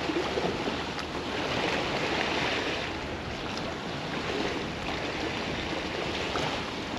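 Estuary waves washing against the river bank on a very high tide, a steady rushing that swells and eases.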